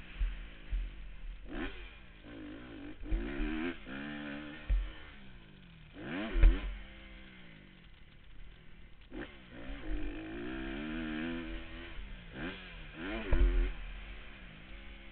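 Dirt bike engine revving up and falling back over and over as the throttle is opened and closed, with low thumps of wind buffeting the helmet camera's microphone.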